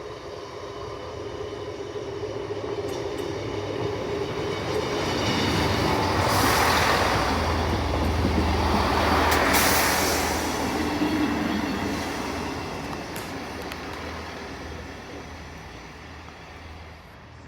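Class 158 diesel multiple unit passing by: engine hum and wheel rumble build to a peak about seven to ten seconds in, then fade away.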